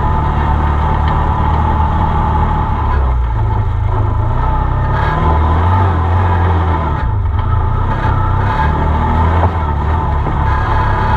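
Arctic Cat Wildcat side-by-side driving over a dirt trail, heard from inside the open cab. The engine runs steadily, its note rising and falling with the throttle, most noticeably in the middle.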